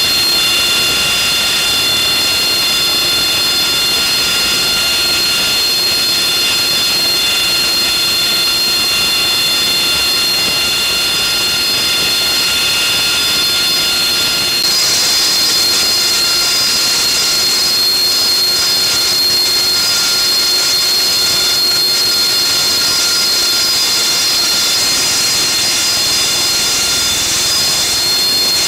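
AV-8B Harrier's Pegasus turbofan running on deck: a loud, steady turbine whine with several high whistling tones over a rushing hiss. About halfway through, the hiss grows louder.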